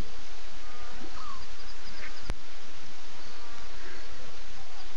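Evening bush ambience: a steady hiss of insects with a few faint short calls, and one sharp click a little over two seconds in.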